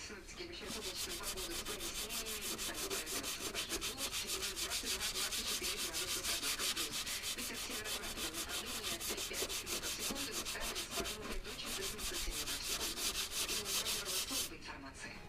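Sanding on a car body panel during bodywork prep: a quick, even rasping rhythm of strokes that starts just after the beginning and cuts off abruptly near the end.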